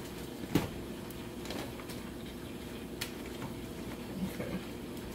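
Metal kitchen tongs clicking a few times against king crab legs and a stainless steel pot as the legs are turned, the sharpest click about half a second in, over a steady low hum.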